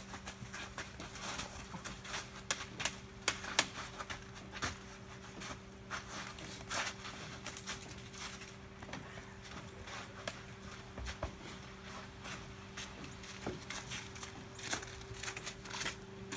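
Footsteps crunching and splashing through wet snow and slush, heard as irregular clicks and knocks, over a steady low hum.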